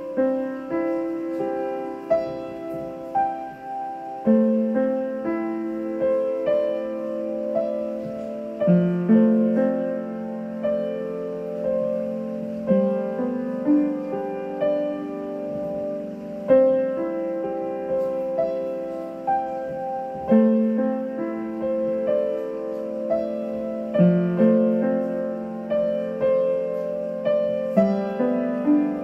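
Slow piano music: chords and melody notes struck one after another, each fading away.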